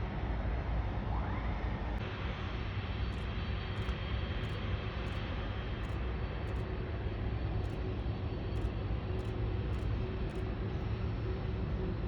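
Steady engine noise of a jet airliner coming in to land, a low rumble with a hiss over it.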